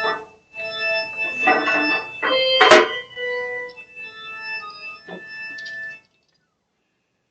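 Organ-like music of held keyboard notes sounding together, which stops abruptly about six seconds in.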